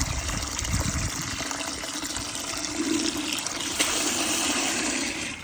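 Water running steadily into a turkey-frying pot with the turkey sitting in it, filling the pot until the bird is submerged; the flow stops near the end.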